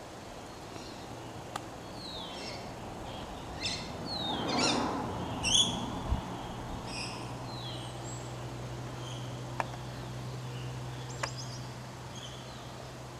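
Birds chirping and calling in short notes and falling whistles, over a steady low hum. A louder rushing swell comes and goes about four to five seconds in, and there are a few sharp clicks.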